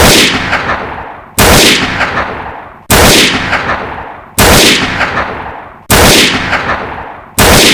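A loud, sudden blast with a crackling tail that fades over about a second. The same sound is repeated identically about every one and a half seconds, six times, like a looped gunshot or explosion sound effect.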